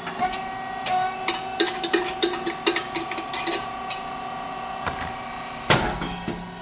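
SYP9002 puffed rice cake machine running a cycle: a steady whine from its hydraulic motor and pump under a run of mechanical clicks and knocks. A loud, brief hissing burst comes near the end as the heated moulds open and release the puffed rice cakes.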